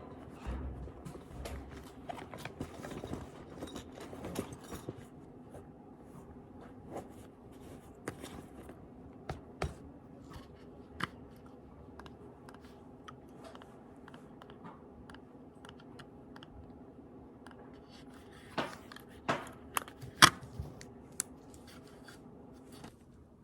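Small objects being handled: scattered light clicks, taps and scrapes over a low steady hum, with a few sharper knocks near the end.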